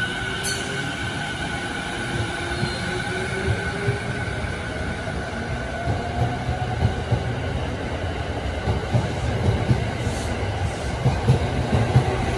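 JR East E233 series electric train pulling out, its inverter motor whine rising in pitch as it gathers speed. From about eight seconds in, an E217 series train on the next track rumbles past with wheel clatter, growing louder toward the end.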